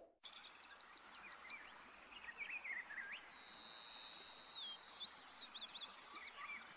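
Faint wild birds calling over a light hiss: short repeated chirps and whistled notes sliding up and down, with a thin high note held for a second or two about halfway through.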